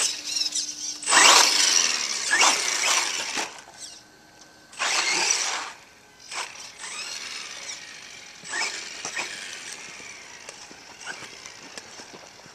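Exceed Dynamite 1/10 scale RC monster truck driving on asphalt, its motor and tyres loud in two bursts of acceleration in the first six seconds, then fainter as the truck runs off down the street.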